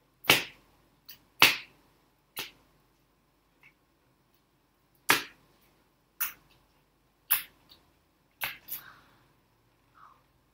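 Clear slime being pressed and poked with fingers, making sharp clicks and pops, about a dozen of them at irregular intervals roughly a second apart.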